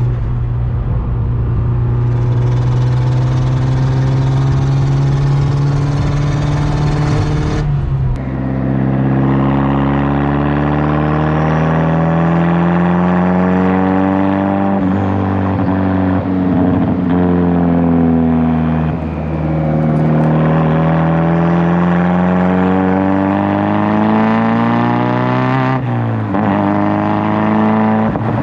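Mazdaspeed3's turbocharged 2.3-litre four-cylinder running through a full CPE exhaust with a catless downpipe. For the first several seconds it is a steady drone with a high hiss over it, which cuts off suddenly about eight seconds in. After that the exhaust note climbs in pitch under acceleration and drops back several times, as at gear changes.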